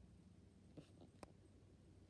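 Near silence: quiet room tone with a few faint clicks around the middle.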